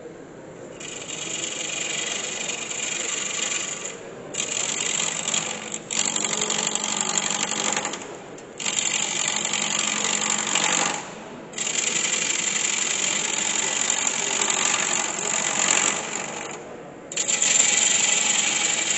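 A long-handled turning gouge cutting a spinning wooden piece on a wood lathe, in five passes of a few seconds each with brief breaks between them.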